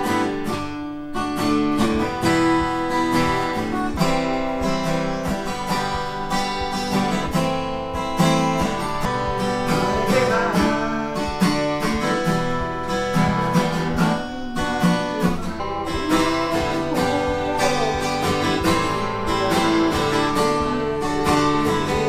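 Acoustic guitar played live, strumming chords, with a man singing over it.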